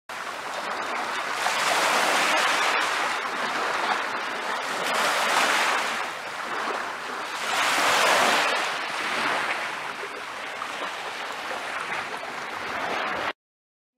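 Small waves washing onto a sandy beach, the surf swelling and falling back about every three seconds. It cuts off abruptly near the end.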